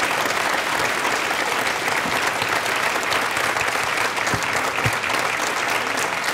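Large audience applauding, a dense steady clapping.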